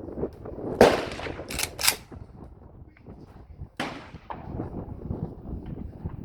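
AK-pattern rifle firing Polish surplus ammunition: one loud shot about a second in, followed by a few fainter sharp cracks. Wind buffets the microphone throughout.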